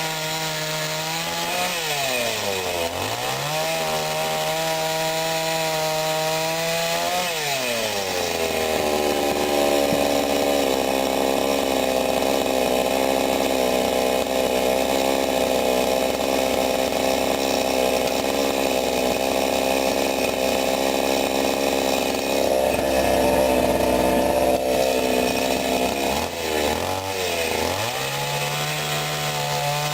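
Sadko GCS 510E two-stroke petrol chainsaw running at high revs. About two seconds in it briefly drops in pitch and picks back up. From about eight seconds its pitch drops and it runs louder for nearly twenty seconds, as when the chain is cutting through wood under load, then it revs freely at high pitch again near the end.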